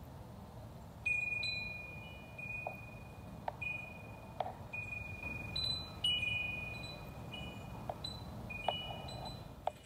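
Wind chimes struck at irregular intervals, each clear high note ringing on for a moment, over a low steady background rumble.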